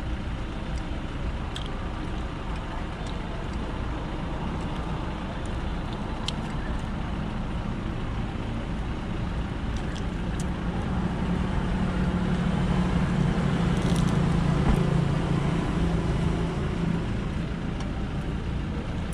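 Steady road-traffic rumble. A vehicle engine hum swells from about ten seconds in, is loudest a few seconds later and eases off near the end, with a few sharp clicks over it.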